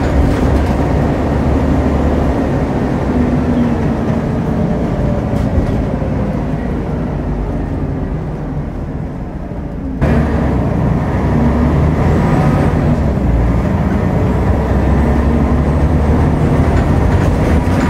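Scania N94UD Omnidekka double-decker bus's diesel engine and running noise, heard inside the upper deck. The engine note falls away as the bus slows. About halfway through the level jumps abruptly, and the engine then pulls with a rising note.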